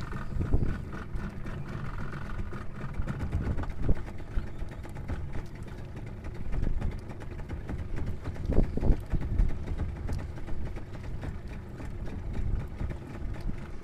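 Steady low rumble of wind and water around a small outrigger fishing boat at sea, with a louder knock or gust about four seconds in and a couple more around eight and a half to nine seconds.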